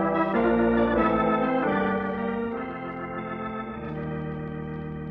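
Organ music bridging a scene change in a radio drama: held chords, loud at first and softening about two seconds in, with a low sustained note entering near the end.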